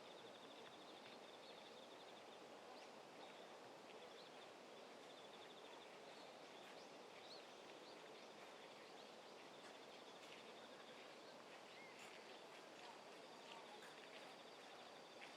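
Faint outdoor ambience: a steady soft hiss with a high, rapid pulsing trill that comes and goes several times, and scattered faint chirps and ticks.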